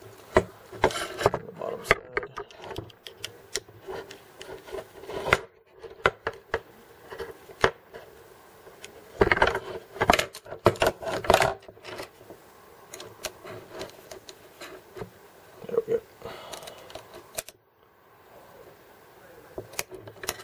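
Hex key and small metal hardware clicking, rattling and scraping against the plastic effector of a 3D printer as frame screws are tightened and the carbon fiber arm's ball joint is handled: irregular taps and scrapes, busiest about a second in and again from about 9 to 11 seconds in.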